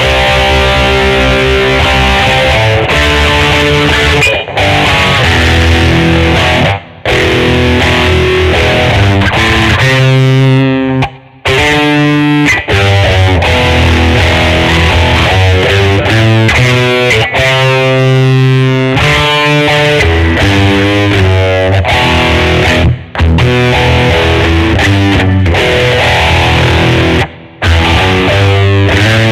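Schecter Omen 6 electric guitar played with distortion through an effects patch, chords and riffs ringing out loudly with a few brief stops.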